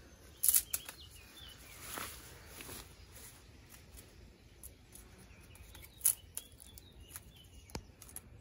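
Dry reed stems rustling and snapping as they are handled and cut with hand pruning shears: a few sharp clicks and cracks at irregular intervals, the loudest about half a second in and about six seconds in.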